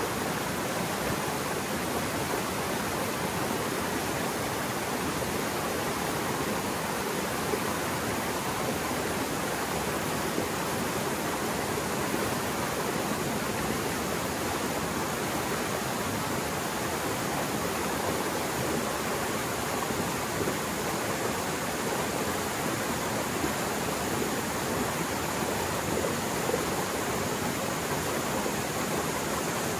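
Mountain stream swollen by heavy rain and running fast, a steady rushing roar of water.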